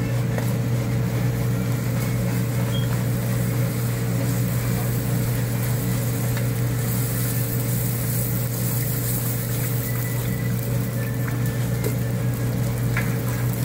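Oil sizzling around a puri deep-frying in a karahi, over a steady low drone. A few faint metallic ticks near the end come from the slotted ladle against the pan.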